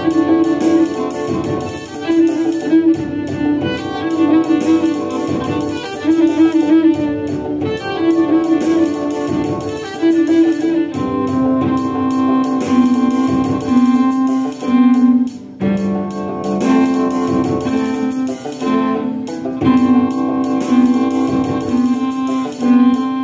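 Bowed cello freestyling a melody over a produced beat with a repeating guitar pattern, busy hi-hats, snare and bass. The cello plays short repeated phrases at first, then moves to longer, lower held notes from about eleven seconds in.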